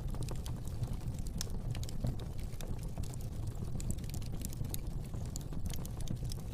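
Fire burning in a fireplace: a steady low rumble of flames with many small, irregular crackles and pops.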